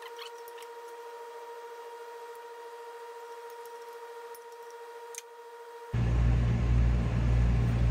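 Faint scattered clicks of hand tools and metal parts being handled while a clutch fan is taken off, over a steady electrical hum. About six seconds in, this cuts off abruptly and a much louder low rumble takes over.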